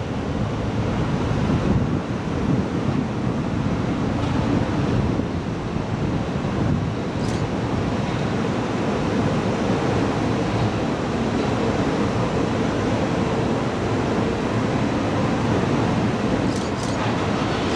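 Steady rushing noise of wind on the microphone, over the low rumble of a Tokyu デヤ inspection electric train approaching along the tracks.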